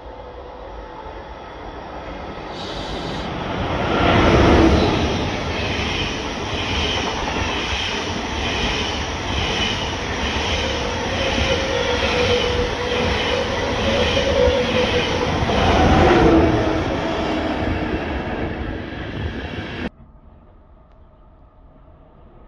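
A train passing close by at speed, loudest at its front and rear about four and sixteen seconds in, with a regular clicking rhythm from the wheels as the cars go by. The sound cuts off suddenly near the end.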